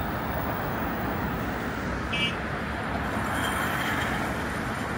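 Steady road traffic noise from a busy city street, with a short high-pitched beep about two seconds in.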